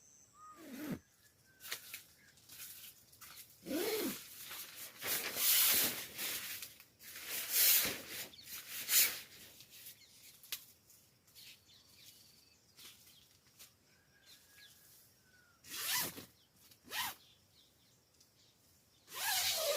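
A zipper being pulled in several short runs, with pauses between them.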